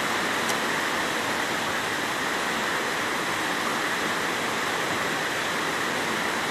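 Fast-flowing floodwater rushing along a flooded street, a steady, even rush of moving water.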